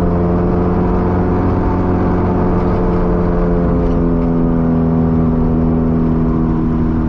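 Honda hatchback's engine revved and held at steady high revs, its pitch barely moving, then dropping off right at the end. It will not rev past about 4,000 rpm, a limit the owner blames on the ECU.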